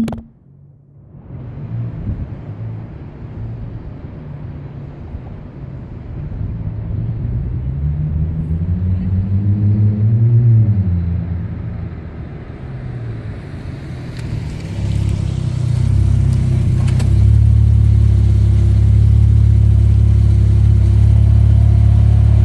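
2015 Dodge Challenger's 3.6-litre V6 exhaust through Flowmaster Super 10 mufflers, a low rumble. The revs climb to a peak about ten seconds in and drop back, and from about sixteen seconds on it holds a loud, steady low drone.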